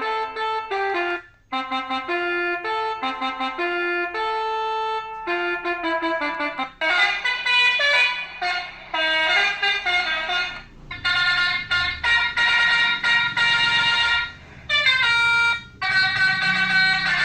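Basuri-style melodic bus horn (telolet horn) playing a tune of short, brassy horn notes that step from pitch to pitch. About seven seconds in the sound thickens into several tones at once and stays loud, with a few brief breaks.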